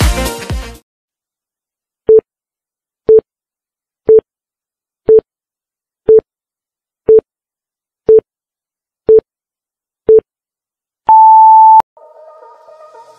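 Music cuts off, then a digital countdown timer sound effect: nine short beeps of the same pitch, one a second, and then a longer, higher beep as the count runs out.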